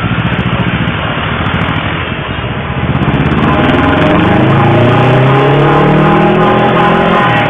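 Street traffic: a motor vehicle's engine runs, then revs up with a slowly rising pitch from about three seconds in, getting louder, while a few steady higher tones sound alongside.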